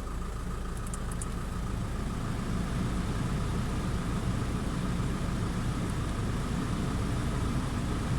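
Car engine idling steadily with the air conditioning switched on at its low setting, a thin steady whine running over the low hum; the sound grows a little louder about two seconds in.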